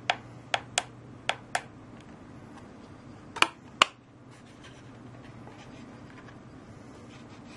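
Small push buttons on a 12 V digital delay-timer module clicking as they are pressed repeatedly to set the countdown: several sharp clicks in the first two seconds, then two louder clicks a little past three seconds in.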